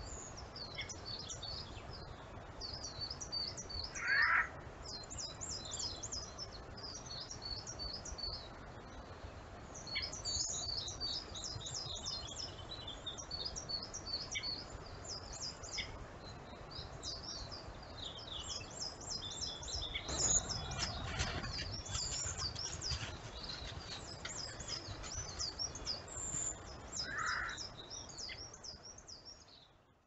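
Winter forest birdsong: small birds chirping high, quick repeated notes throughout, with two louder, lower single calls, about four seconds in and near the end. The sound fades out at the very end.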